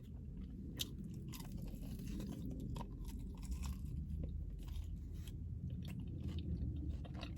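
A person chewing food close to the microphone, with many small crunches and wet mouth clicks.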